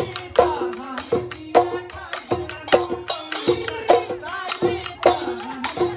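Music: a sung Bihu folk song over a brisk, steady drum beat with rattling percussion.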